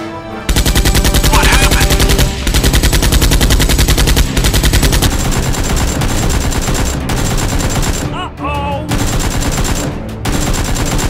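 Machine-gun sound effect: rapid automatic fire in long bursts, with short breaks about two, four, eight and ten seconds in.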